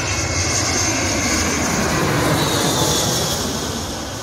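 Airbus A320neo-family jet airliner flying low overhead on landing approach, its engines a loud steady rush. A high whine falls in pitch through the middle of the pass.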